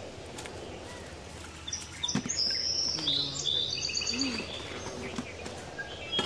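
Birds calling: a cluster of high chirps and short whistled notes starts about two seconds in and lasts a couple of seconds, over a steady background hiss.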